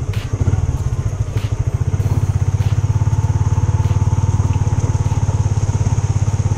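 Motorcycle engine running at low revs with a steady, even pulsing beat as the bike rolls slowly over a muddy road. A few sharp clicks in the first few seconds.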